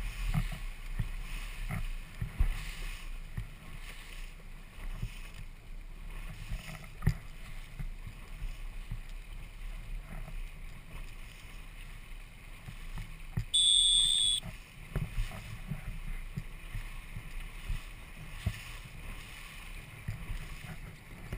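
Wind buffeting the microphone and water splashing and rushing beside a boat moving through light chop, with irregular small splashes. About two-thirds through, a single short high-pitched beep, lasting under a second, is the loudest sound.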